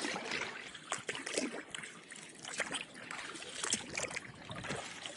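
Kayak paddling: water dripping and trickling off the paddle blades, with small irregular splashes as the strokes go in.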